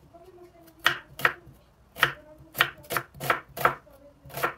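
Kitchen knife slicing a peeled onion on a wooden cutting board: about eight sharp, irregularly spaced knocks as the blade cuts through and meets the board.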